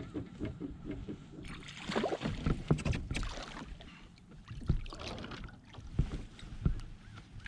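Irregular clicks, knocks and rustles of fishing gear being handled aboard a kayak while a hooked striped bass is played toward the boat.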